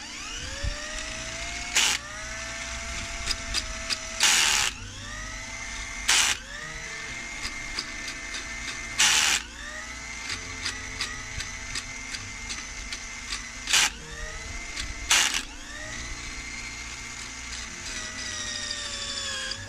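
Cordless drill boring a hole into a piece of antler: the motor spins up and holds a steady whine, and about six times a loud, harsh grinding burst comes as the bit bites, the pitch sagging and recovering. The drill stops near the end.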